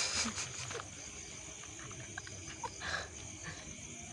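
Steady high-pitched insect chirring, typical of crickets, with a few short knocks and rustles near the start and again about three seconds in.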